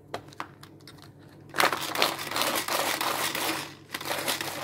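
Stock cube being crumbled in a Tupperware Turbo Chef pull-cord chopper. A few light clicks, then from about one and a half seconds in roughly two seconds of loud, dense rattling and grinding, tailing off near the end.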